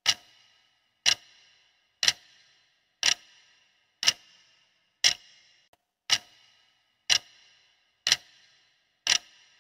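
Clock-tick countdown timer sound effect, ticking steadily about once a second: ten even ticks with silence between them, marking the time allowed to answer a quiz question.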